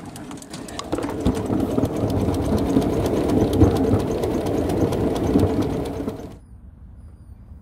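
Ridable live-steam miniature locomotive under way, its exhaust and running gear beating in a fast, even rhythm that grows louder about a second in. The sound cuts off suddenly about six seconds in, leaving only a faint background.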